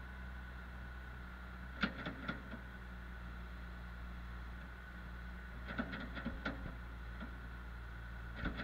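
Farm machinery running steadily, a John Deere wheel loader working over a Jay-Lor TMR mixer wagon, heard as a low hum with a faint high whine. Three brief clusters of knocks and clanks come about two, six and eight and a half seconds in, as the loader's bucket is shaken out over the mixer.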